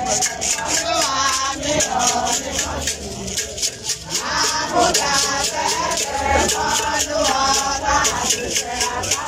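A group of women singing together, with a rattle shaken in a fast, steady beat.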